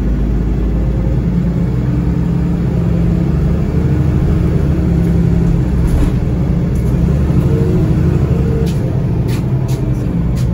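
NefAZ-5299 city bus under way, heard from inside the passenger cabin: a steady low engine drone with road rumble, and a few sharp clicks near the end.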